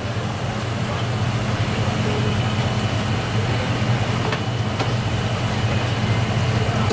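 Steady low mechanical hum with a constant rushing noise, the drone of kitchen machinery such as a ventilation fan, with a couple of faint light clicks about four to five seconds in.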